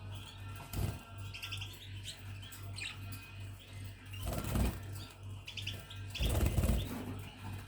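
Caged budgerigars chirping, with two loud flurries of wing-flapping, one about four seconds in and one a little after six seconds.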